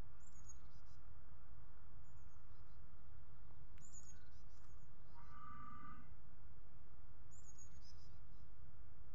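Short high bird chirps, each sliding downward, come several times over a steady low rumble. A brief pitched call or tone sounds about five seconds in.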